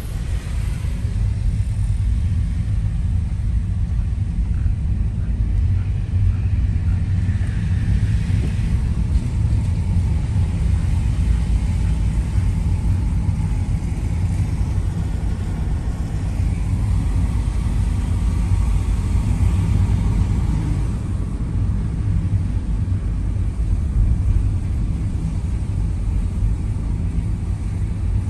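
Steady low rumble inside a moving car's cabin, engine and road noise together, with a fainter hiss of tyres on the wet road.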